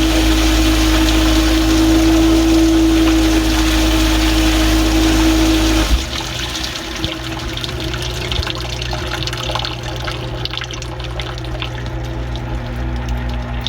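Samsung dishwasher's pump running with a steady hum while water sprays and swirls inside the tub, then cutting off suddenly about six seconds in; afterwards water trickles and drips, with a fainter hum starting near the end.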